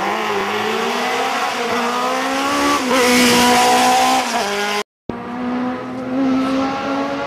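Single-seater formula race car's engine accelerating hard, its note rising steadily in pitch. It is loudest as the car passes close about three seconds in, then drops at a gear change. After a sudden cut of silence just past the middle, a race car engine is heard farther off, holding a steady high note.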